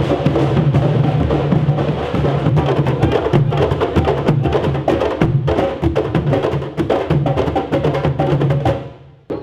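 Candombe drum group: several Uruguayan tambores played with a hand and a stick, a fast interlocking rhythm of low drum beats with sharp stick clicks on the wooden shells. The sound drops away briefly near the end.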